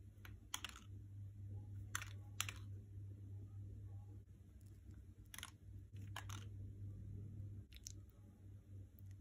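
Faint, brief crinkles and rustles of a paper food wrapper as a burger is handled, about six short rustles over a low steady hum.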